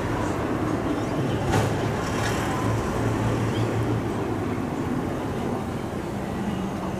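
A steady low engine hum over a noisy background, with one sharp click about one and a half seconds in.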